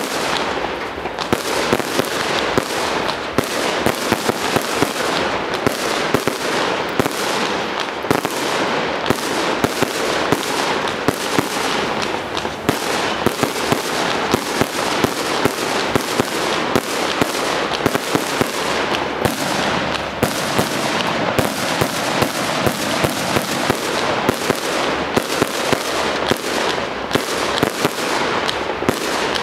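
A 100-shot 30 mm firework cake (Lucky Fireworks Red Cake) firing tube after tube, about three shots a second. Each launch thump is followed by its burst, with a steady crackling hiss of burning stars between the shots.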